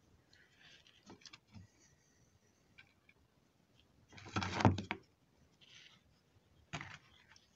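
Handling noises of a power-supply circuit board and tools being moved on a workbench: faint scattered clicks and rustles, a louder clatter lasting about a second around four and a half seconds in, and a short knock near the end.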